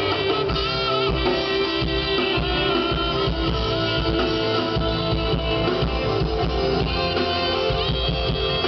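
Live band playing during a sound check: guitar with a drum kit, steady and loud.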